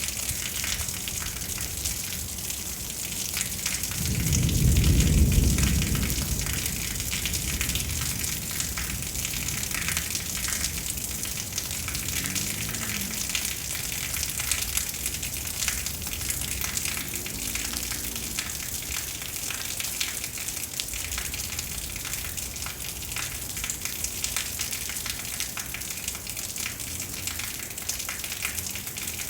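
Steady hiss of heavy rain, with a deep rumble of thunder that swells about four seconds in and dies away a couple of seconds later.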